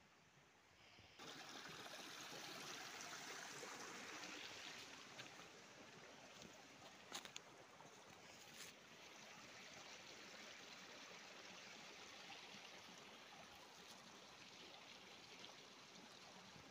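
Faint, steady rushing of a small hillside stream, starting abruptly about a second in, with two short clicks near the middle.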